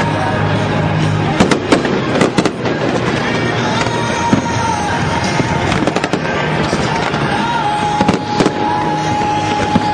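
Fireworks display going off: continuous crackling with sharp bangs that come in clusters, about one and a half to two and a half seconds in and again around eight seconds.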